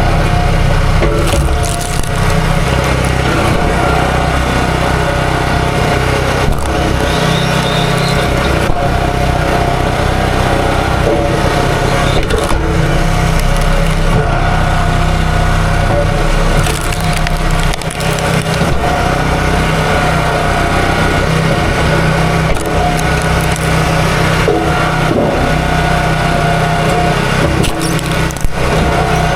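A small gasoline engine running steadily at high speed, with a few brief sharp cracks over it.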